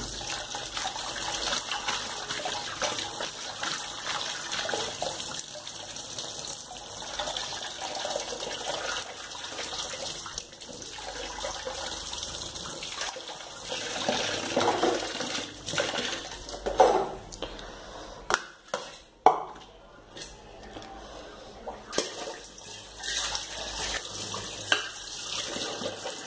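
Kitchen tap running into a stainless steel sink while soya chunks are rinsed in a bowl under the stream. Past the middle the flow breaks up, with a few sharp knocks.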